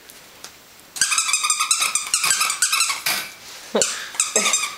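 Puppy yapping and barking excitedly in play, in a rapid run of high-pitched yaps starting about a second in.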